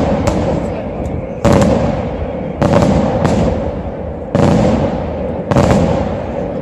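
Aerial firework shells bursting one after another: five loud, sharp bangs at irregular intervals of about a second, each dying away in a long rumbling echo.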